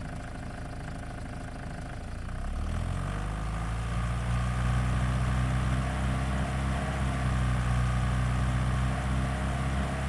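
Car engine sound effect from Krotos Studio Pro's Sedan Opel preset, mixed between engine and exhaust. It idles at first, revs up about two and a half seconds in as the drive control is raised, then holds a steady cruising speed.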